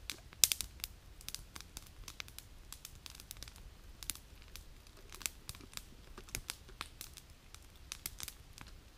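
Wood campfire crackling, with irregular sharp pops and snaps scattered throughout, the loudest about half a second in.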